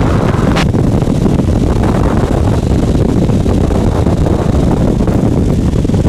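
Heavy wind buffeting on the microphone of a light aircraft on short final in 30-knot winds, with the aircraft's engine and airflow beneath it. A single sharp click comes about half a second in.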